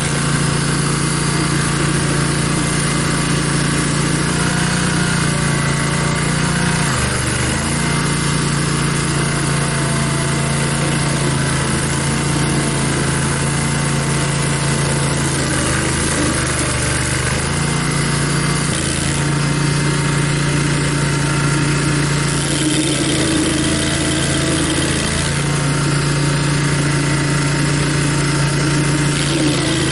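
Barreto stump grinder's gas engine running steadily under load, its note dipping briefly a few times as the load changes.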